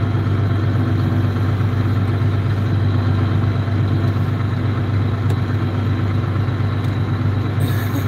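John Deere 4250 Powershift tractor's six-cylinder diesel engine running at a steady, even drone, heard from inside the tractor cab.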